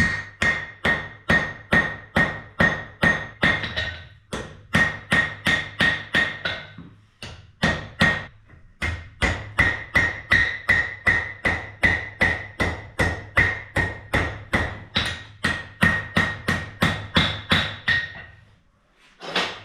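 Blacksmith's hammer striking hot bar stock on an anvil in a steady rhythm of about two to three blows a second, each blow with a ringing note, while the bar is drawn out. The hammering pauses briefly twice, stops shortly before the end, and is followed by one last strike.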